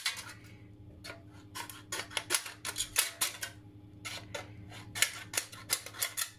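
Scissors cutting lengthwise slits down the side of an aluminium drinks can: a run of short, sharp snips and clicks in irregular clusters, with a brief pause a little past halfway.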